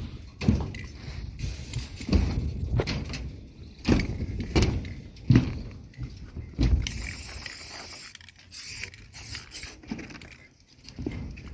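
Irregular footsteps and knocking thuds, about one to two a second, with a brief hiss about seven seconds in.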